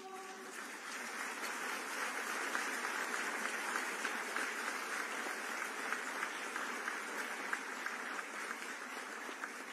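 A large audience applauding steadily, a dense patter of many hands clapping, easing off slightly near the end. At the very start the last held chord of a choir dies away under the clapping.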